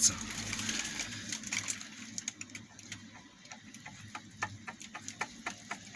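Light metallic clicking from a Tavria/Slavuta gearbox shaft being rocked by hand in its bearing, a few irregular clicks a second: the bearing has play.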